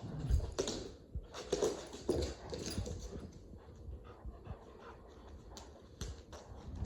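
Several dogs playing and wrestling together: irregular scuffles and breathing, busiest in the first three seconds, with a few sharp knocks.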